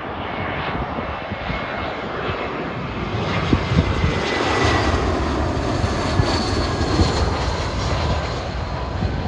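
British Airways Airbus A320-232's twin IAE V2500 turbofan engines passing low overhead on final approach to land, gear down: a rushing jet noise that swells to its loudest about halfway through, with a faint high whine from the engine fans that drops slightly in pitch.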